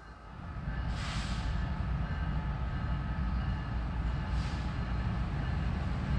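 Approaching train hauled by BNSF diesel locomotives: a low rumble builds during the first second and then holds steady, with two short hisses, about a second in and about four and a half seconds in.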